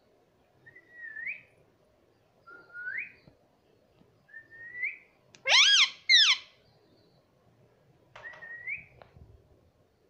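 Indian ringneck parrot whistling: three short notes that swoop upward at the end, then two loud, shrill calls just past the middle, and one more upward-swooping whistle near the end.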